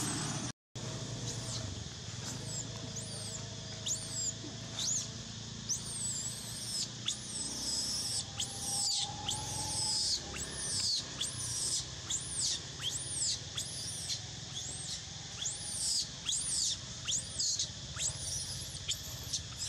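Baby long-tailed macaque screaming over and over in short, shrill, high calls that rise and fall in pitch, one or two a second. These are distress screams of a baby left alone by its mother.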